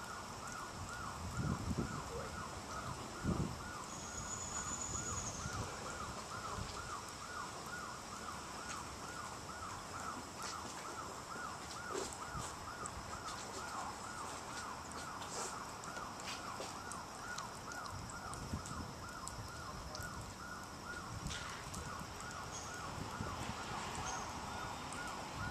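An electronic alarm warbling steadily, rising and falling about twice a second. Two low thumps come in the first few seconds.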